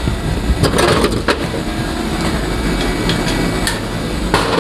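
Steady low hum of workshop machinery, with a few sharp clicks and knocks about a second in and again near the end as the aluminium part is bolted down onto its fixture.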